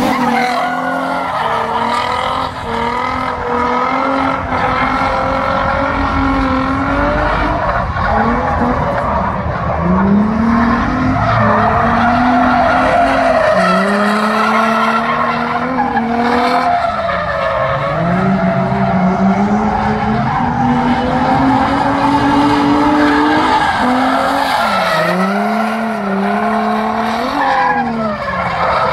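A drift car's engine held at high revs, the revs dropping and climbing again every few seconds, with tyres squealing and skidding throughout.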